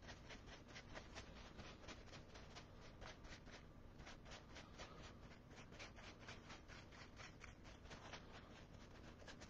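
Faint, quick rhythmic rubbing, about five strokes a second: a paintbrush being wiped back and forth to work the moisture out before dry brushing.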